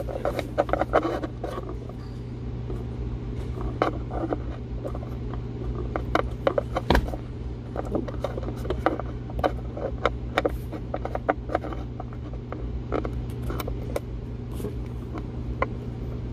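Scattered small clicks, taps and rattles of hands working on parts while a nut is fitted during a Haldex controller install, over a steady low hum.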